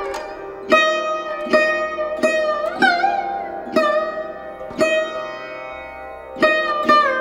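Background music: a plucked string instrument, sitar-like, playing a slow melody of single notes about once a second, several of them bent or wavering in pitch.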